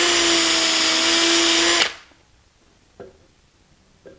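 DeWalt 20V MAX cordless drill running at a steady speed as it bores a hinge-pin hole through the barrels of a wooden hinge blank held in a drilling jig. It stops a little under two seconds in, and a short click follows about a second later.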